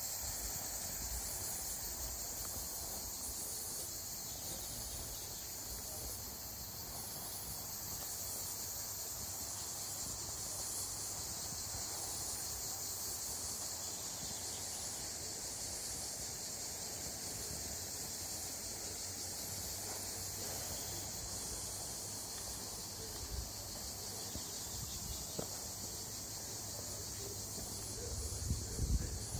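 Steady high-pitched chorus of insects such as crickets, unbroken throughout, over a faint low rush. A few soft low bumps come near the end.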